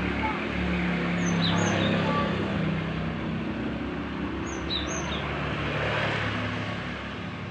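A young gelatik songbird gives a few short, high chirps in two brief clusters, about a second in and again around five seconds. A steady low engine hum of a vehicle runs underneath.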